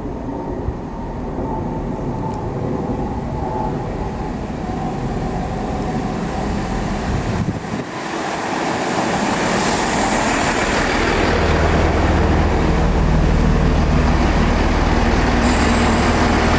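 Great Western Railway Networker Turbo diesel multiple unit approaching and drawing into the platform, its diesel engines running. The sound dips briefly a little before halfway, then grows louder and steady, with a low engine hum, as the train stands alongside.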